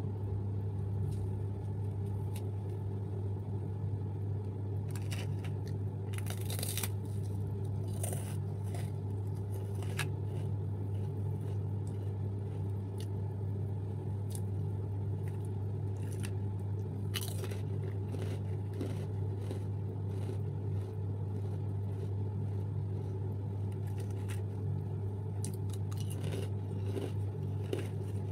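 A steady low hum throughout, with scattered sharp crackles and clicks, several in quick clusters, as snack crackers and their wrapping are handled.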